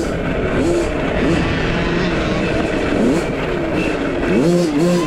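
Mini motocross bikes racing, their motors rising and falling in pitch as they speed up and slow down.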